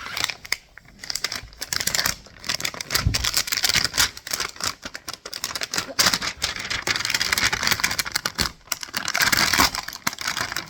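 Toy packaging being opened by hand: plastic film and seals peeled and crinkled, a rapid, dense crackling with scattered clicks.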